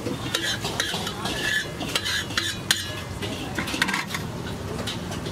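Metal spatula scraping and clinking across a flat street-food griddle as masala gravy is spread and worked, in a run of short irregular strokes.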